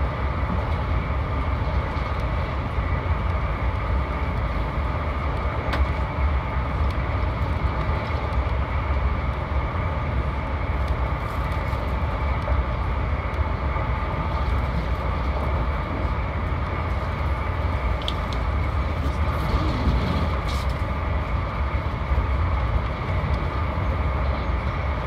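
Steady rumble of a VIA Rail passenger train running at speed, heard from inside the coach: wheels rolling on the rails, with a few light clicks.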